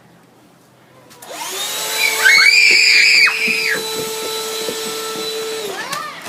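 A motor whine like a vacuum cleaner's spins up about a second in, runs steadily and winds down near the end. A loud shrill sound rides over it for about a second, between two and three seconds in.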